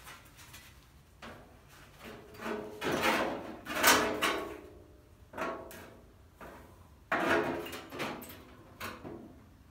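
Sheet-metal panel scraping and clunking against a steel car body as it is slid and pressed into place by hand for a test fit. It comes in several separate bursts, some with a short metallic ring, the loudest about four seconds in.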